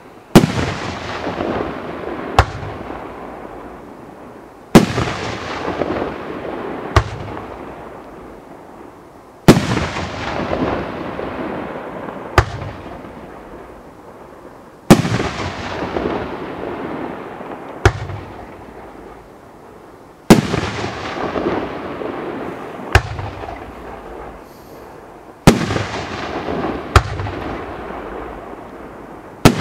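3-inch 25-shot shell cake firework firing its shells. A loud bang comes about every five seconds, each followed by a noisy tail that fades over a few seconds. A smaller, sharper report falls about two seconds after each bang.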